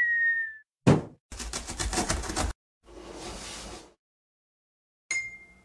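Cartoon sound effects for an animated intro: a short high tone, a quick downward swoosh, a rapid rattle lasting about a second, a softer hiss, then a short high ding near the end.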